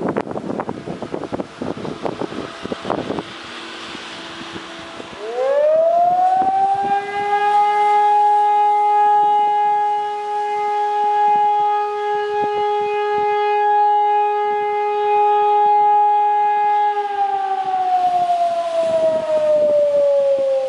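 Civil defence siren sounding a test alarm: wind buffets the microphone for the first few seconds, then the siren rises in pitch at about five seconds, holds one steady wailing tone with overtones for about eleven seconds, and slowly winds down near the end.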